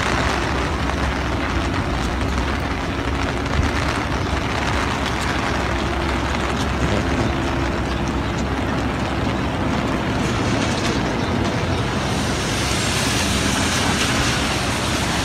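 Steady rushing noise of heavy rain.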